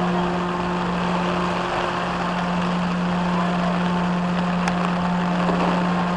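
An engine running steadily at one constant low pitch, over a continuous hiss of heavy rain.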